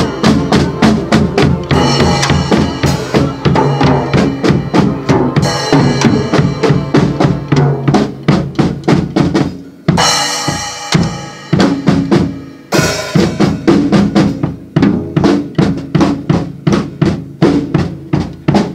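Drum kit played in a fast, steady beat of bass drum, snare and cymbals, with long cymbal washes for a few seconds past the middle, over held low pitched notes.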